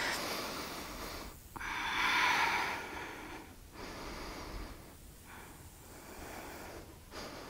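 A woman breathing slowly and audibly while holding a yoga twist, with about four long breaths separated by short pauses. The second breath is the loudest.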